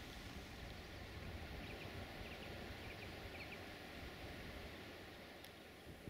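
Faint outdoor ambience: a low steady wind rumble on the microphone, with a few short, faint bird chirps in the middle and a single click near the end.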